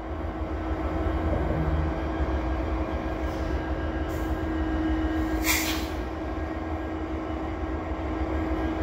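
Canadian Pacific SD70ACU diesel-electric locomotives idling while standing, their two-stroke EMD 710 diesels giving a steady low rumble with a constant hum. A short hiss a little past halfway.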